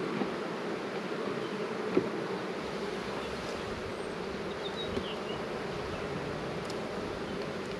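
Steady buzzing hum of a honeybee colony around an open hive. A sharp knock about two seconds in and a fainter one near five seconds cut through it.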